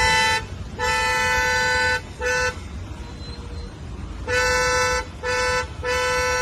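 Hyundai Creta's car horn honking over and over at one steady pitch: about six blasts in a few seconds, some short taps and some held a second or more, the last one still sounding as the others end. A low road and engine rumble runs beneath.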